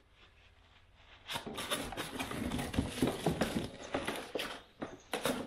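A long cardboard box and its packing rustling, scraping and knocking as a curved LED light bar is slid out of it. It starts after about a second of near quiet, with a louder knock near the end.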